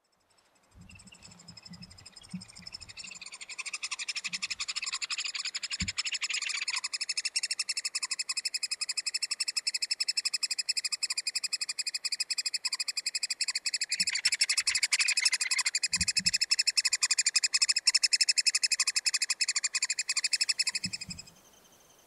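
Juvenile three-toed woodpecker calls: a continuous, very rapid buzzing chatter that builds up over the first few seconds, holds steady, and stops shortly before the end.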